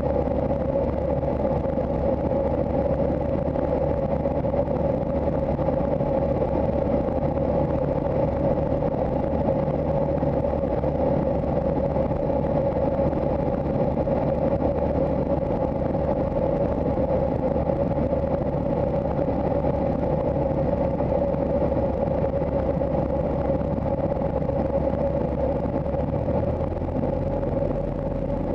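Van's RV-6 light aircraft's piston engine and propeller running steadily on approach, heard from inside the cockpit as a constant drone.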